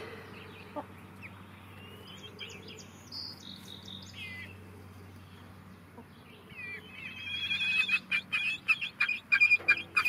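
Half-grown chickens chirping: faint, scattered high chirps at first, then from about seven seconds in a louder run of rapid chirps mixed with sharp clicks.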